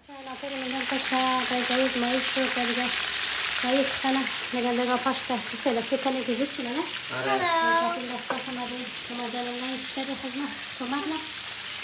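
Floured fish pieces sizzling steadily as they fry in oil in a pan on a gas burner. A pitched sound that wavers up and down, like voices, runs over the sizzle, with a higher one about seven seconds in.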